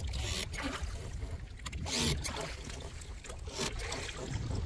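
Small inflatable dinghy underway: water rushing and splashing along the hull, with wind rumbling on the microphone.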